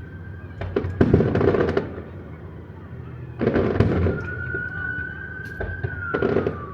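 Aerial fireworks bursting: three loud clusters of booms with crackle, about a second in, near four seconds and again near the end. Between the second and third clusters a thin whistling tone holds, then falls in pitch.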